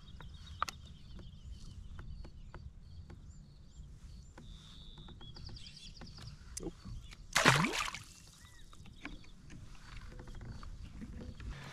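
Small birds chirping in the background, with small clicks and knocks of fishing gear being handled in a kayak. About seven and a half seconds in, a short loud splash: a small bass being let back into the lake.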